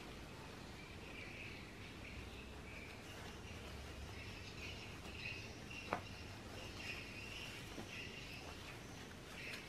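Faint, high-pitched chirping in the background, coming and going in patches, with a single sharp click about six seconds in.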